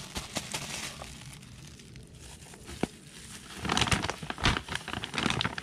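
Plastic crinkling from a disposable plastic glove and fertilizer bags being handled: light scattered crinkles at first, then louder, denser crinkling from about three and a half seconds in.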